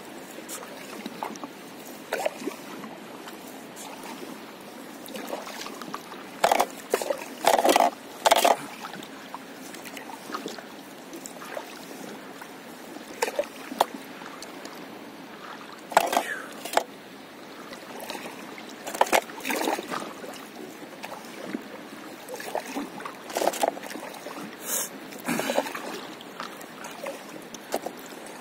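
Stand-up paddleboard paddle dipping and pulling through calm sea water: short splashes and drips in irregular clusters every few seconds, over a faint steady lapping of water.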